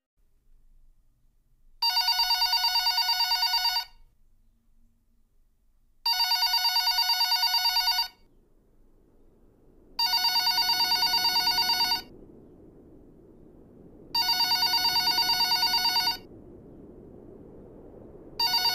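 Telephone ringing with a fluttering electronic trill: four rings of about two seconds each, two seconds apart, with a fifth starting just at the end.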